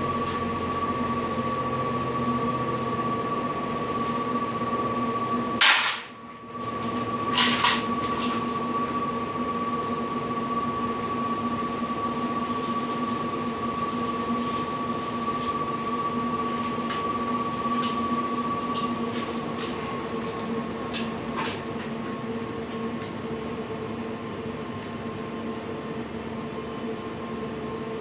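Steady machine hum with a high, even whine, broken by a couple of sharp clicks and a brief dropout about six seconds in; the whine drops slightly in pitch about two-thirds of the way through.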